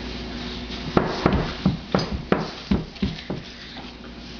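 An uneven run of about nine sharp knocks and taps, starting about a second in and lasting about two and a half seconds.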